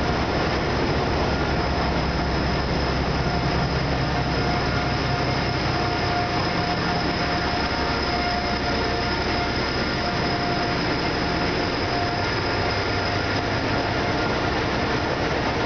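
ZDM3B narrow-gauge diesel locomotive rumbling past at slow speed as the train pulls into the station. Its engine fades after about eight seconds as the coaches roll by, their wheels clattering on the track, and a thin steady squeal runs over the noise throughout.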